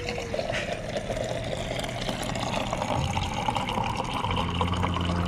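Bottle-refill water dispenser pouring a chilled stream of water into a stainless steel bottle, with the steady rush of the stream. Under it the machine gives a low steady hum that grows louder about four seconds in.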